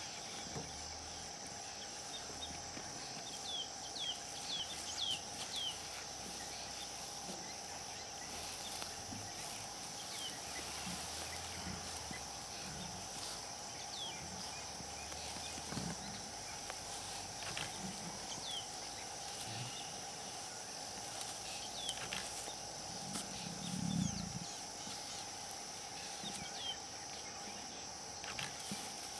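Bush ambience at dusk: a steady insect chorus drones at two pitches, one mid and one high, with scattered short high chirps. A single low thump comes late on.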